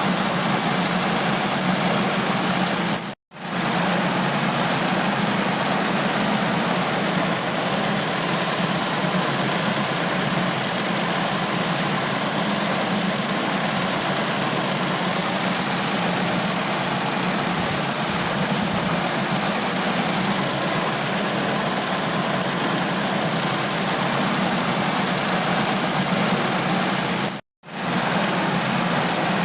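Steady, even rain drumming on a car roof. It drops out to silence for a split second twice, about three seconds in and near the end.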